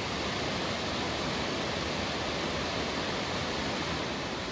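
Laurel Fork Falls, a waterfall running high, rushing steadily.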